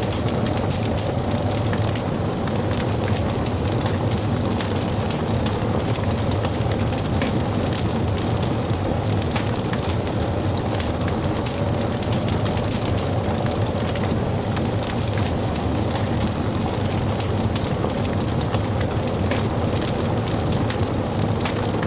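Wood fire burning, with frequent small crackles and pops over a steady low rumble of flames.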